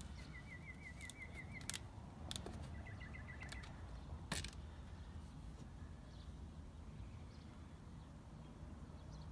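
A bird's quick trill of repeated chirps, sounding twice in the first few seconds over a steady low outdoor rumble, with a few sharp clicks.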